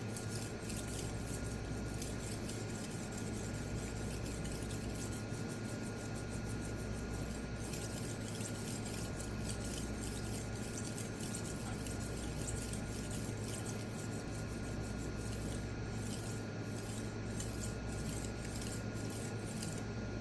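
Knife edge being stroked back and forth over a small wet resin-bonded diamond pocket stone, a soft, steady scraping. The stone is badly loaded up with steel swarf.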